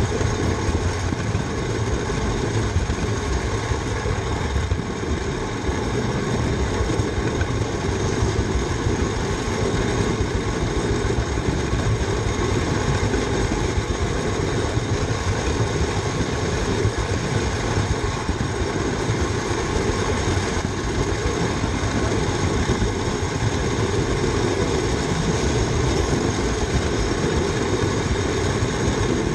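Steady mechanical rumble and rattle of a model locomotive running along a raised garden railway track, heard from a camera riding on the locomotive itself.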